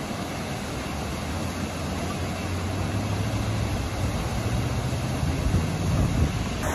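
A vehicle engine running with a low steady hum, over the continuous rush of a waterfall.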